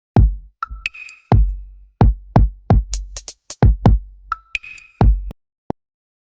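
Electronic music with a drum-machine beat: deep kick-drum hits, sharp hi-hat clicks and short synth notes. It breaks off a little over five seconds in.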